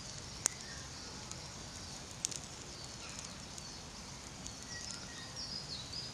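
Small campfire of wet branches burning: a few sharp pops over a steady hiss, the loudest about half a second in and another a little after two seconds, as the damp wood crackles. Birds chirp faintly near the end.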